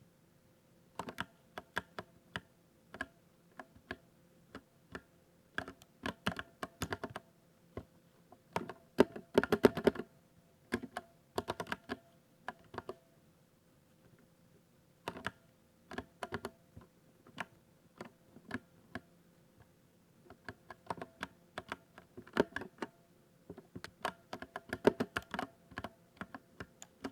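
Typing on a 60% RGB keyboard: keystrokes in irregular runs with short pauses, the densest and loudest run about nine to ten seconds in.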